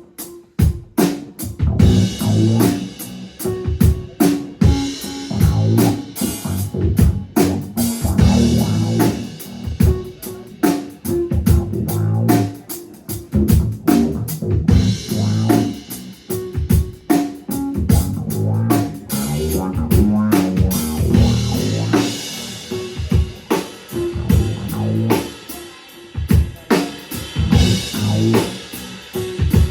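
Drum kit and bass playing a busy jazz-funk groove together, with kick, snare and rimshot hits over a moving low bass line.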